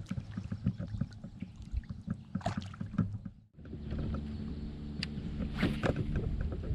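Water lapping and knocking against an inflatable paddleboard, with low rumbling and irregular small knocks, and two brief splashes, one about two and a half seconds in and one near the end. The sound cuts out for a moment about three and a half seconds in.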